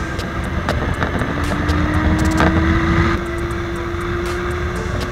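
Motorcycle engine running at road speed under heavy wind rumble on the microphone; the engine note dips about a second in, then climbs slowly as it pulls.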